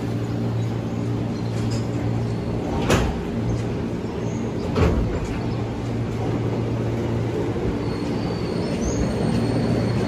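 JR 205-series electric commuter train standing at the platform, its onboard equipment giving a steady hum. Two sharp clacks are heard, about three and about five seconds in.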